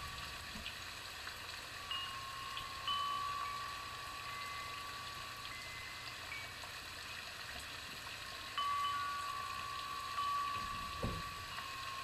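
Background music of soft chime-like tones: held notes at a few pitches, a new one coming in every few seconds. A low knock about eleven seconds in.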